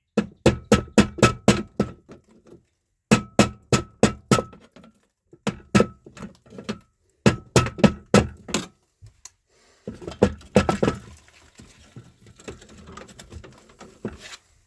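Hammer blows on a metal electrical switch box, in quick runs of four to eight strikes with pauses between, each strike ringing briefly, to knock loose a part held fast by paint. From about ten seconds in come rougher scraping and rattling sounds.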